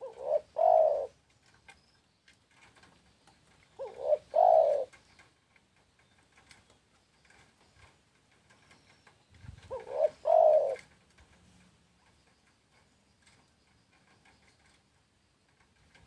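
Spotted dove cooing: three phrases, each a short note followed by a longer one, at the start, about four seconds in and about ten seconds in.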